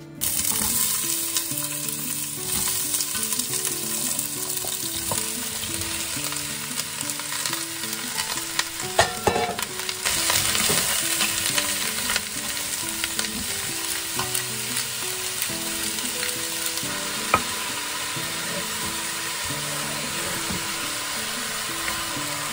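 Chopped onion, carrot and celery sizzling in hot avocado oil in a stainless-steel stockpot while a wooden spoon stirs them. There are a few sharper knocks about nine seconds in.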